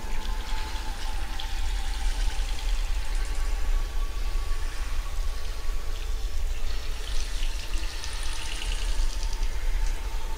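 A tap running a steady stream of water into a bathroom sink. From about seven seconds in, hands wash under the stream, adding splashing. A steady low hum runs underneath.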